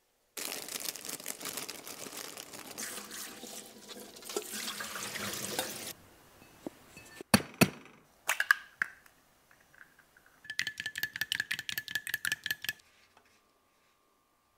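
Water running for about five and a half seconds, then an egg cracked with two sharp knocks, then the egg beaten briskly in a small ceramic bowl: a quick run of about nine ringing clinks a second, lasting a couple of seconds.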